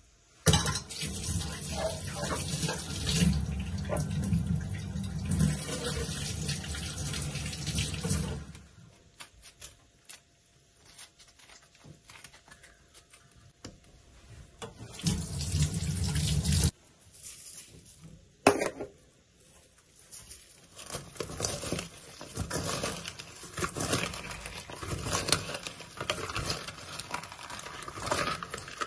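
Kitchen tap running onto cut limes and lemons in a stainless-steel colander: one long run of about eight seconds at the start, then a shorter run of about two seconds midway. After a single sharp knock, hands squeeze and rub the wet lime pieces in the metal colander, giving irregular crackling and squelching.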